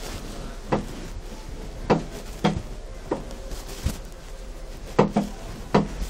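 Irregular sharp knocks, about eight in six seconds and unevenly spaced, over a steady low hum.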